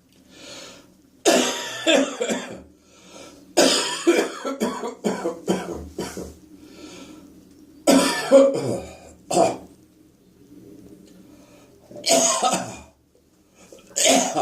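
A person coughing with phlegm and clearing the throat in several bouts, one of them a rapid run of short coughs, with short lulls between the bouts.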